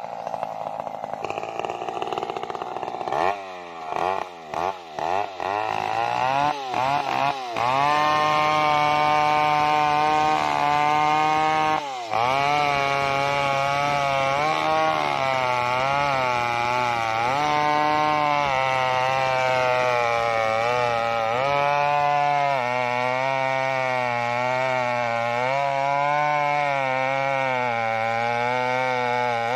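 Two-stroke Stihl chainsaw revving in short blips, then running at full throttle as it rips a sengon log lengthwise. Its pitch wavers as the chain bites, with a brief drop about twelve seconds in.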